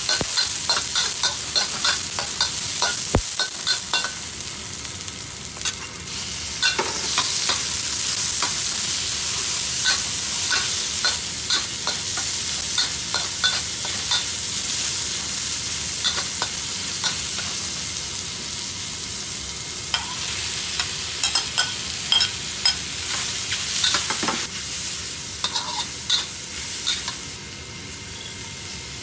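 Onion and sliced meat sizzling in hot oil in a wok while a metal spatula stirs them, with a steady hiss and frequent sharp scrapes and taps of the spatula against the wok. The clicks come thickest in the first few seconds and again a little past two-thirds through, and the sizzle eases off near the end.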